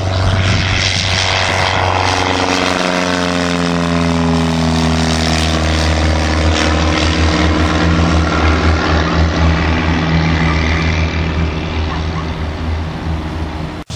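Single-engine light propeller airplane taking off and climbing at full power. Its engine and propeller drone drops in pitch over a few seconds as it passes, then holds steady as it flies away.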